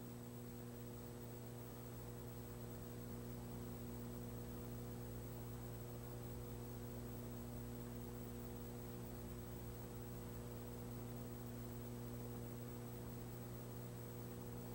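Steady, faint electrical mains hum with a light hiss, unchanging throughout.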